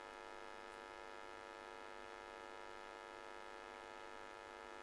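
Faint, steady electrical hum made of several even tones that hold without change.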